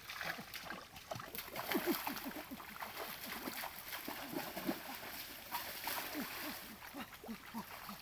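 Feet splashing and sloshing through shallow stream water in quick, irregular steps as a person runs and jumps across it.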